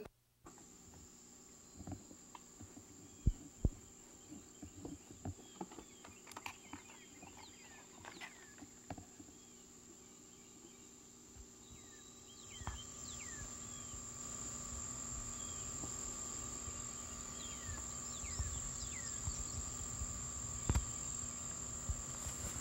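Insects shrilling in a steady high drone, with scattered short faint chirps over it. There are a few soft knocks in the first few seconds, and a low rumble comes in about halfway through.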